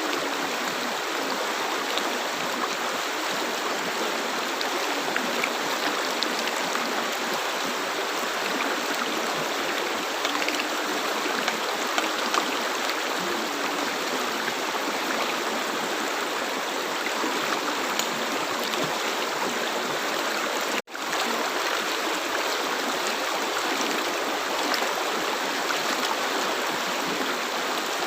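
River water flowing steadily with an even rushing hiss. About three-quarters of the way through it cuts out for a split second and comes straight back.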